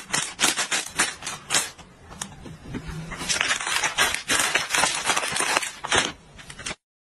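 Plastic packaging crinkled by hand: first a soft plastic tissue-pack wrapper, then a plastic snack bag, giving a rapid crackle. It gets louder from about three seconds in, when the snack bag is crumpled.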